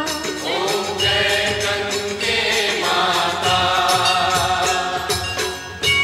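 Devotional chanting sung to music, a voice holding long wavering notes over instrumental backing and a steady beat of percussion.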